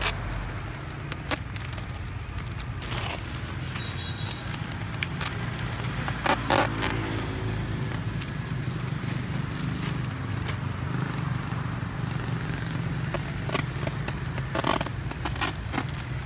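Plastic snack-bag packaging crinkling and rustling, with scattered sharp crackles, as the bags are handled and fastened around a man's chest. A steady low rumble of road traffic runs underneath.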